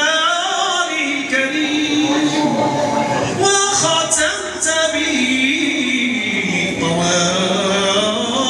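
A man's voice singing a cappella into a microphone, in long drawn-out melodic lines that glide and waver: Moroccan devotional chant in praise of the Prophet.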